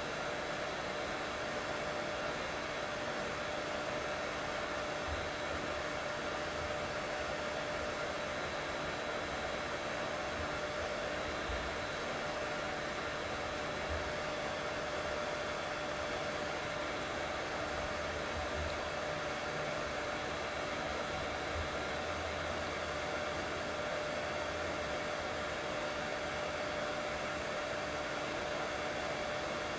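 Steady white noise for soothing a colicky baby to sleep: an unbroken rushing hiss with a faint constant hum running through it.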